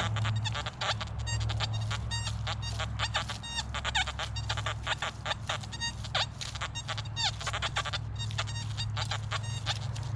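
XP Deus metal detector giving a rapid stream of short, choppy beeps at varying pitches as it is swept over ground thick with iron and other buried targets, over a steady low hum.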